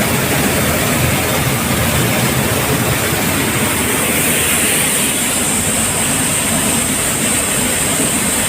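TD400 hemp seed dehulling and separating machine running: a steady, loud mechanical din with a low rumble and a high hiss that grows a little stronger about halfway through.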